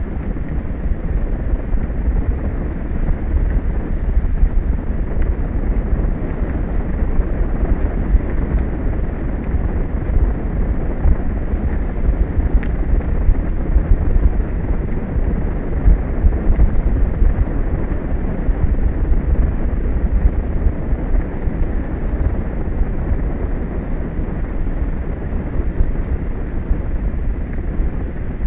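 Wind buffeting the microphone: a steady low rumble with a rushing hiss, unbroken throughout.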